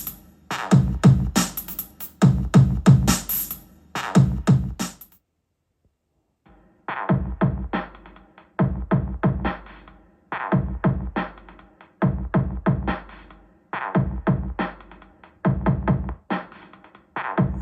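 Electronic drum-machine and synthesizer music played back through portable battery-powered PA speakers at 85 dB with flat EQ. About five seconds in the music stops for a moment and resumes on the other speaker, which sounds duller, with much less treble.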